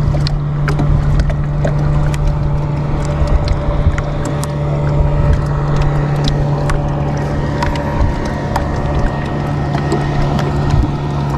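A boat motor running at a steady low hum, with wind and water noise and scattered small clicks.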